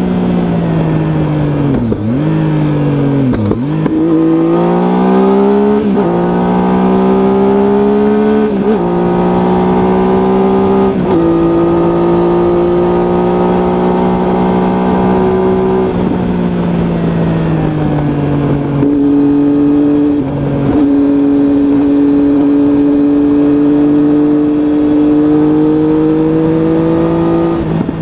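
Triumph Tiger motorcycle engine under way, running up through the gears: the pitch climbs, dips briefly at each shift and climbs again several times in the first half. It then drops as the rider eases off, and holds a steady cruising note to the end.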